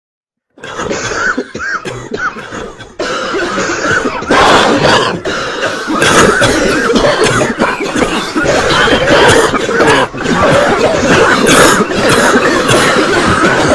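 A crowd of many people coughing at once, a dense mass of overlapping coughs and throat-clearing. It starts about half a second in and grows thicker and louder in steps, around three, four and six seconds in.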